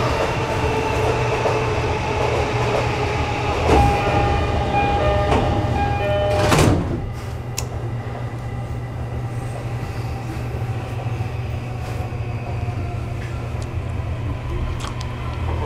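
Door chime of an E231-series commuter train sounding in stepped tones as the sliding doors close, ending in a thud as the doors shut about six and a half seconds in. After that, a steady low hum inside the stationary car.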